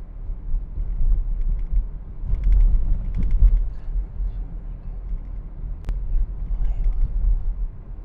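Low, steady road and engine rumble heard inside a moving car's cabin, with a single sharp click about six seconds in.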